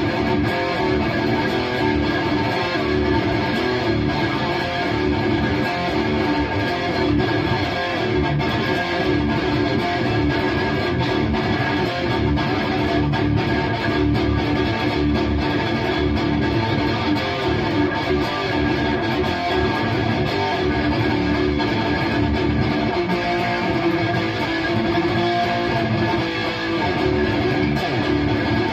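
Electric guitar played through a Bogner Uberschall preamp with no effects, giving a heavily distorted, raw thrash-style tone, riffing continuously with fast, tightly spaced picking.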